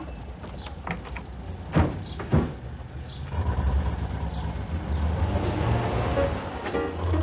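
Two sharp knocks as soldiers board a military truck, then the truck's engine runs with a steady low rumble from about three seconds in.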